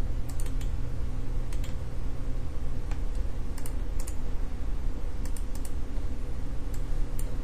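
Scattered sharp clicks from computer input at a desk, about a dozen, some in quick pairs and threes, over a steady low hum.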